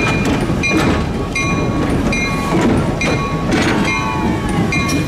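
A locomotive bell ringing steadily, about one and a half strikes a second, over the low rumble and clanking wheels of slowly rolling diesel locomotives. A faint wheel squeal comes about three and a half seconds in.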